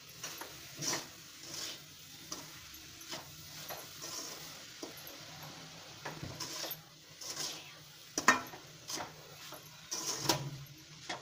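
A spatula scrapes and knocks against a steel kadhai as grated coconut is stirred into sugar syrup, in irregular strokes with a sharper knock about eight seconds in.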